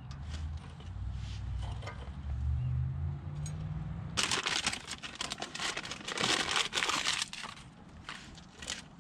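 Dense, scratchy crinkling and scraping for about three seconds, starting about four seconds in, from hands working at a car's front brake rotor and caliper bracket. A low rumble comes before it and a couple of sharp clicks come near the end.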